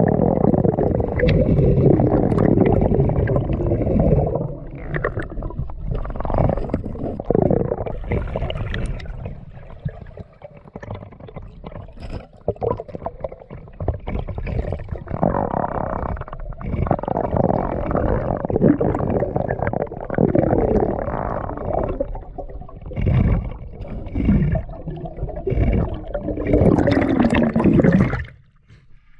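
Muffled underwater rumbling and gurgling picked up by a camera submerged in river water, dropping off sharply near the end.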